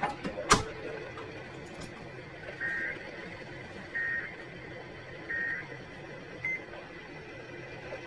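A sharp knock, then three short two-tone electronic beeps about 1.3 seconds apart from a Midland weather alert radio as its buttons are pressed.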